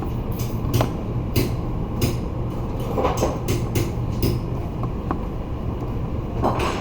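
Steady mechanical rumble with a low hum, overlaid by scattered sharp clicks and ticks, several in the first half and another near the end.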